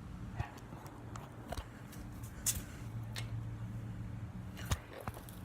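A few sharp clicks and taps, about one a second, from a plastic highlighter being handled and worked on at the start of taking it apart, over a low steady hum.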